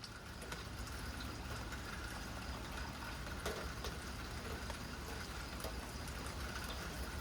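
Steady rain falling, with scattered drops tapping here and there.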